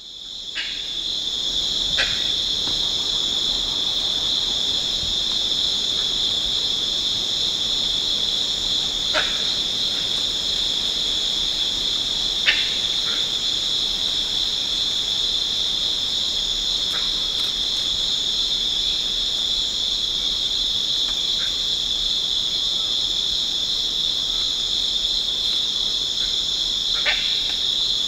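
Dense, steady insect chorus in tropical forest, a continuous high shrill band. A few short, faint calls or chirps cut in every few seconds.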